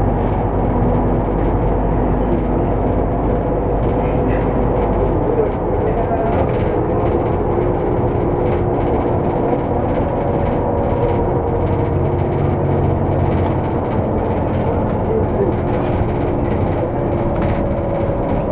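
Inside a VDL Citea SLFA 180 articulated city bus: the steady drone of its engine and drivetrain, with small rattles from the cabin. The low engine hum changes about five seconds in.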